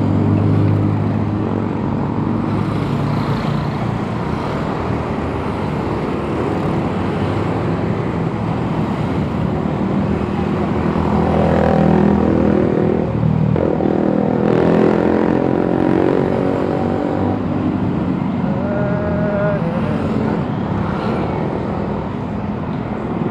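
Busy road traffic: the steady hum of vehicle engines, with one engine passing close by about halfway through and a short tone a few seconds later.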